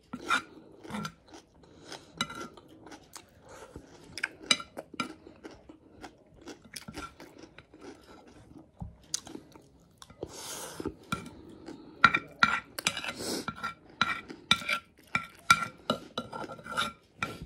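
Mouth sounds of chewing and eating chicken biryani, with a plastic spoon tapping and scraping on a ceramic plate. Short clicks run throughout and grow busier and louder in the second half.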